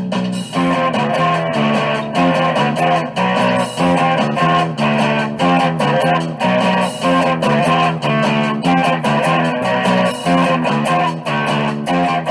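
Background music: a guitar-led instrumental track with a steady, regular beat.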